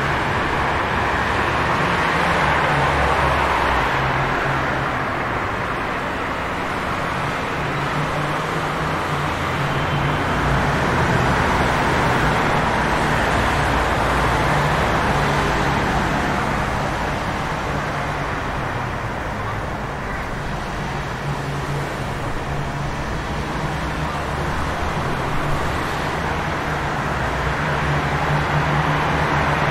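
Rainy city street ambience: a steady hiss of rain and wet road under car traffic, with a low engine hum, swelling and easing slowly.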